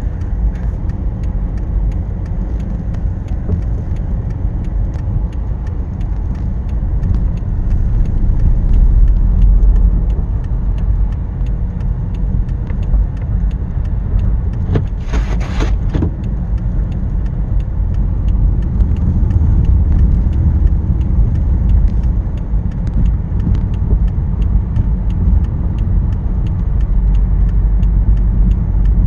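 Low, steady rumble of a vehicle creeping slowly through deep snow, heard from inside the cab, with faint ticking throughout and a brief hiss about fifteen seconds in.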